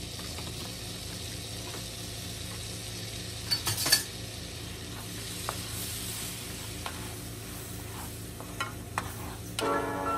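Butter sizzling in a frying pan as flour is stirred into it with a wooden spoon to make a roux, with a few sharp knocks against the pan about four seconds in and light clicks of the spoon after. Music comes in just before the end.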